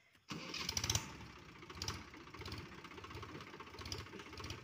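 Mahindra Yuvo 275 DI tractor's three-cylinder diesel engine running with a rapid, even beat, coming in abruptly just after the start and briefly louder about a second in.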